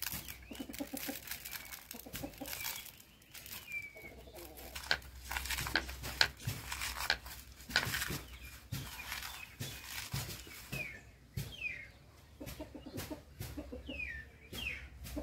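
Hands mixing sliced green mango with chopped coriander on a plate, making scattered light clicks and rustles, with birds calling and chirping in the background.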